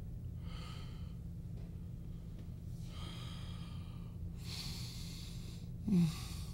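A man breathing heavily and raggedly through an open mouth, three long breaths, then a short low groan falling in pitch near the end, over a steady low hum.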